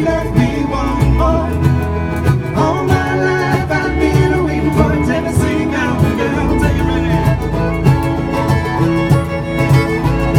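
A bluegrass string band playing an instrumental break, with fiddle over guitar, banjo and upright bass.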